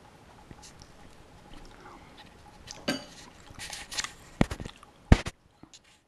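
Handling noise as the camera is picked up: a scatter of clicks and rustles, then two sharp knocks near the end, the second the loudest.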